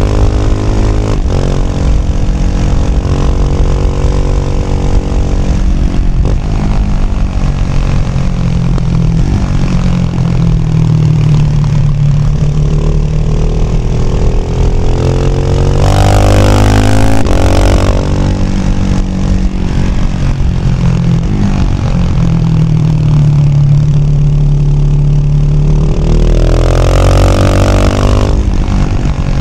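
Husqvarna Vitpilen 701's single-cylinder four-stroke engine running through a Shark SRC 4 slip-on exhaust while riding. The revs rise and fall with the throttle through the gears, with hard pulls about halfway through and again near the end.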